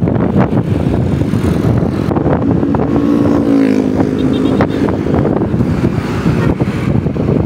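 Road and traffic noise heard from a moving vehicle, with wind buffeting the microphone. A pitched tone dips slightly in pitch and then holds steady for about a second and a half, midway through.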